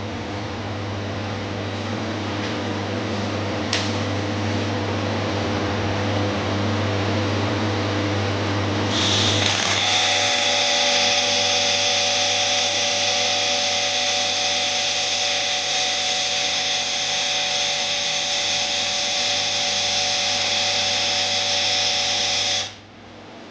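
Friction stir welding machine running on aluminium: a steady machine hum that builds gradually, then, about nine seconds in, a higher whine joins as the sound changes, until the machine cuts off suddenly near the end.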